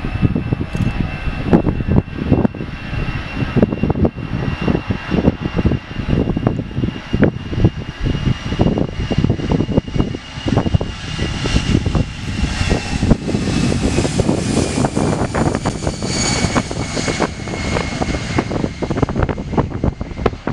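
Jet engines of a Vueling Airbus A320-family airliner at takeoff thrust as it rolls down the runway past the listener. A high whine drops slightly in pitch from about halfway through as the jet goes by, over a hiss that grows louder, with gusty low rumbling throughout.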